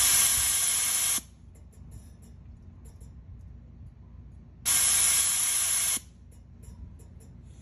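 Compressed air hissing from the pneumatic actuator and positioner of a VRG 6-inch anti-surge valve as the valve is stepped through 15% position changes. One hiss cuts off a little over a second in. A second hiss, about a second and a half long, starts near five seconds in.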